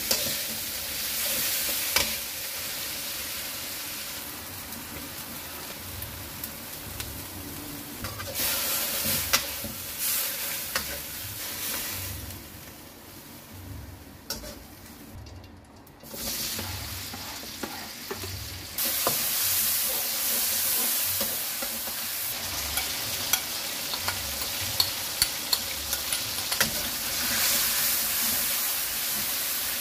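Food sizzling as it is stir-fried in a wok, a metal spatula scraping and clinking against the pan. The sizzle dies down for a few seconds near the middle, then comes back louder, with frequent spatula clicks, as a tomato-based mixture is fried.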